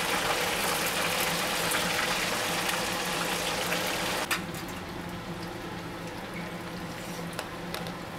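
Stinky tofu deep-frying in hot oil: a loud, steady sizzle that starts suddenly, eases a little after a sharp knock about four seconds in, and keeps going.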